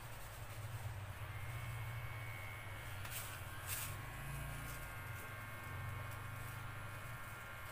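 Electric hair clipper humming as it cuts hair over a comb, with two short clicks about three seconds in.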